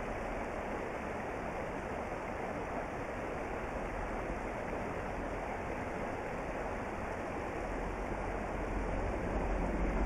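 A mountain stream running steadily over a small riffle of rocks, an even rush of water. A low rumble builds near the end.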